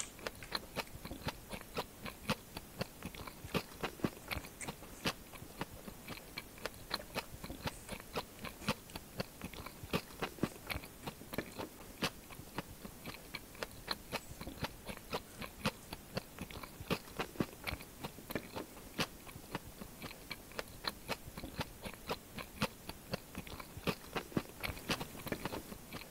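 Close-miked chewing of crispy fried snacks: a steady run of crunching bites, a few crunches a second.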